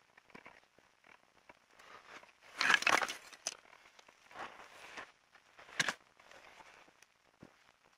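Dry rustling and crunching of dry plant material and sticks handled and rubbed by hand, in short irregular bursts, loudest a little under three seconds in, with another sharp crunch near the end.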